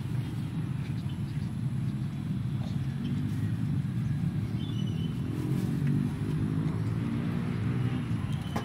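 A motor vehicle's engine running, a low steady rumble with a hum whose pitch rises slightly through the second half.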